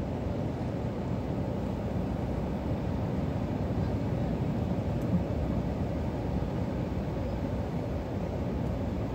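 A car driving through floodwater: a steady low rumble of engine and water, with no distinct splashes.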